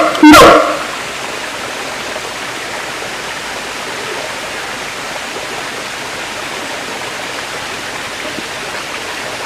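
A siamang's loud call ends within the first second. A steady, even rushing noise fills the rest, with no calls.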